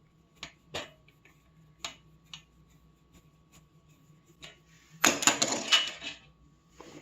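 Scattered light clicks and taps of hands working on metal and plastic parts of a PC case, with a dense burst of clattering about five seconds in.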